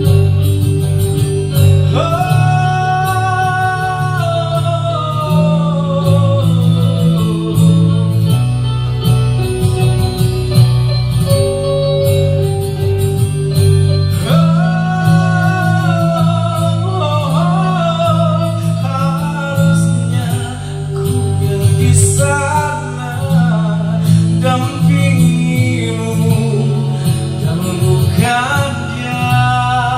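A man sings an Indonesian pop ballad into a microphone over backing music, amplified through a small mixer and PA. Long held sung phrases begin about two seconds in and again around fourteen seconds, with shorter lines near the end.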